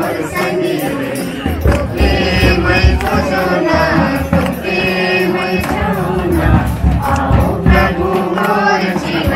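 Music: a song with singing over a steady beat.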